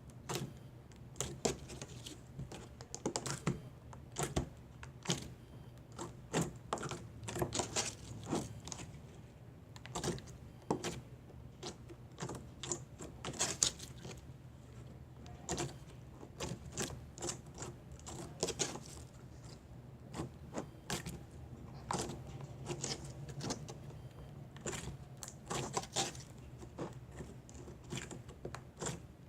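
Handling noise as putty is stretched and worked by hand: irregular light clicks and taps, a few each second throughout, while the putty itself stays silent.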